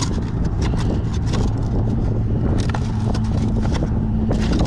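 Strong wind buffeting the microphone in a heavy low rumble, over a steady low hum, with scattered sharp clicks and scrapes of close handling.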